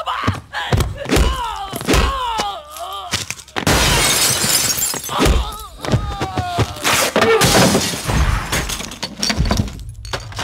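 Action-film fight sound effects: hard punch and body-blow impacts and crashing, breaking sounds in quick succession, with men crying out in pain between the hits.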